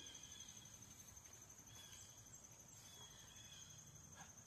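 Faint crickets trilling steadily, with short chirps repeating every second or so over quiet outdoor background noise; otherwise near silence.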